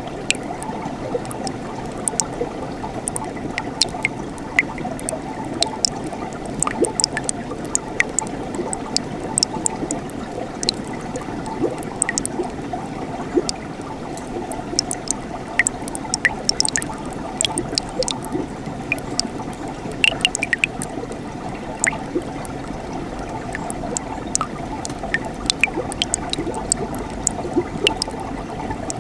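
Winter mountain stream flowing steadily over rocks, burbling, with frequent small splashes and drips scattered through the flow.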